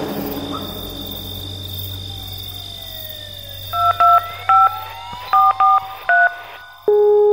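Phone keypad dialing tones: about six short two-tone beeps in quick, uneven succession, then near the end a steady phone tone starts as the call goes through.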